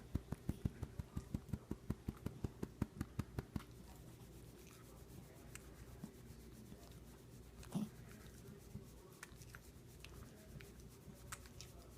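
Small dog eating at his food bowl: a faint, quick run of mouth clicks, about five a second, for the first three and a half seconds, then only a few scattered clicks.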